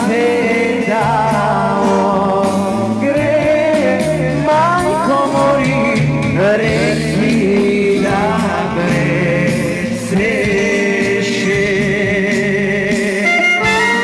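Macedonian folk song: a voice sings ornamented, wavering lines over instrumental accompaniment with a steady bass.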